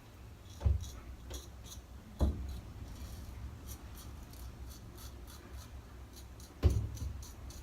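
Gem single-edge safety razor scraping through lathered stubble in quick short strokes, a few per second. There are low thuds about a second in, again around two seconds in, and near the end.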